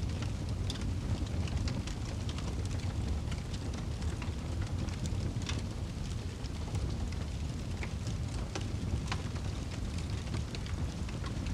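Wood fire burning in a fireplace: a steady low rumble of the flames with scattered sharp crackles and pops from the logs.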